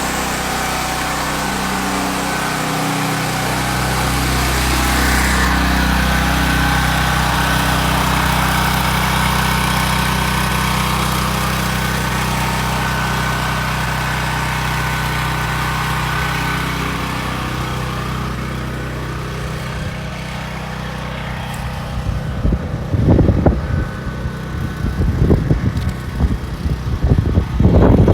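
Portable generator's small engine running steadily at a constant speed, powering the house during a power cut. In the last few seconds, irregular low buffeting bumps on the microphone come over it.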